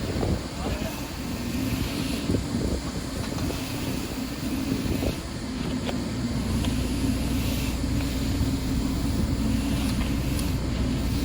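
A vehicle engine running steadily, its low hum firming up about halfway through, with wind noise on the microphone.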